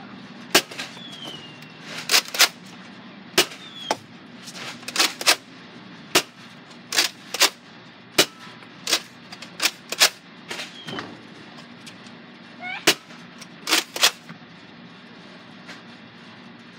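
Nerf foam-dart blasters firing: a string of sharp pops and clacks at irregular intervals, some in quick pairs.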